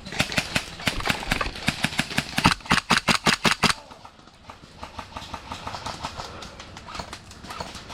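Airsoft guns firing: rapid strings of sharp clicking shots, about seven a second at their densest, through the first four seconds, then fainter scattered shots.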